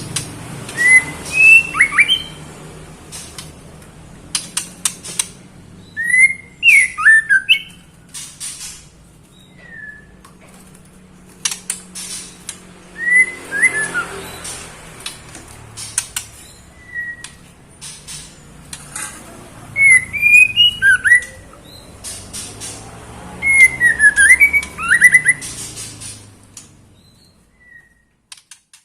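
Female white-rumped shama calling: short bursts of sharp whistled notes every few seconds, with dry clicking notes in between. It is the call of a female in breeding condition calling for a male. The sound fades out near the end.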